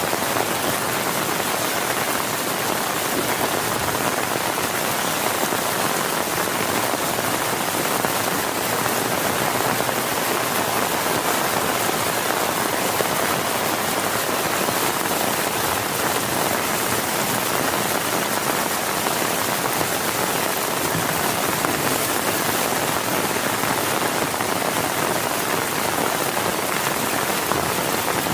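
Heavy rain falling steadily and evenly, with no thunder.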